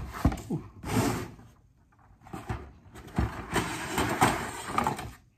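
Rustling and scraping of plastic and cardboard packaging handled by hand as thin metal decoy stakes are unpacked, in two spells with a short lull about two seconds in.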